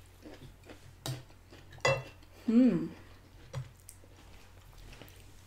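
A fork set down on a ceramic dinner plate with a sharp clack, among a few lighter clicks of cutlery and handling, and a short voiced 'mm' from one of the diners that rises and falls in pitch.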